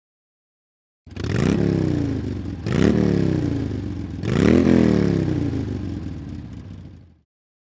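Motorcycle engine revved three times, each blip rising quickly in pitch and falling back slowly, then cutting out.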